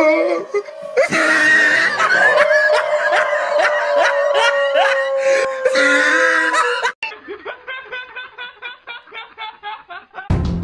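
Laughter over background music, with a long held note, then a run of short rhythmic laughs at a lower level that ends abruptly.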